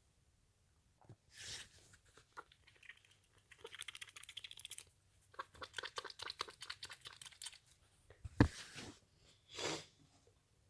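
Tissues rustling and crinkling in two stretches of fast crackling, then a sudden sharp loud burst about eight seconds in, followed by a short breathy rush of air.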